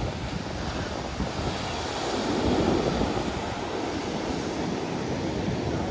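Ocean surf churning and breaking against rocks, a steady rush that swells about two seconds in as a wave breaks, with some wind on the microphone.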